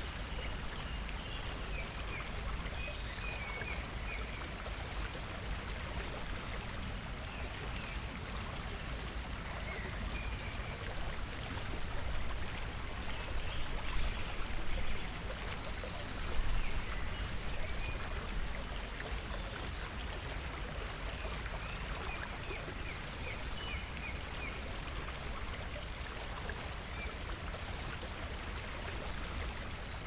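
Steady rushing outdoor background noise with a low rumble and small birds chirping now and then. A quick run of high rattling notes comes about a quarter of the way in and again around the middle, where it briefly gets louder.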